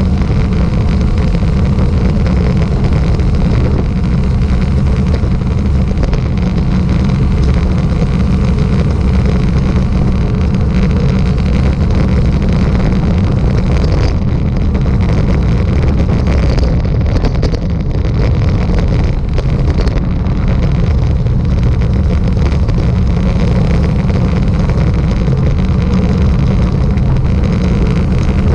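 Wind buffeting the microphone at road speed: a loud, steady low rumble.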